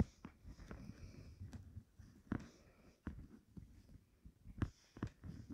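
Metal knitting needles clicking faintly and irregularly as purl stitches are worked in yarn, with a few slightly sharper taps among the soft ticks.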